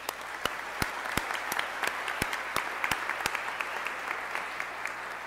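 An audience applauding, with a few sharp single claps standing out above the steady clapping.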